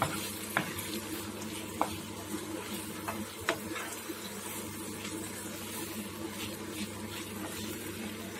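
A spatula stirring thick wheat-rava halwa in a nonstick pan, with a steady sizzle of ghee frying and a few sharp clicks of the spatula against the pan in the first half. The ghee is separating out of the thickened mixture, the sign that the sweet is cooked and the stove is ready to be switched off.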